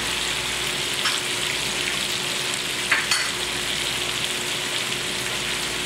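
Chicken pieces frying in hot oil in a wok, a steady sizzle, with spices just sprinkled over the browned chicken. A few short clicks come about a second in and again around three seconds in.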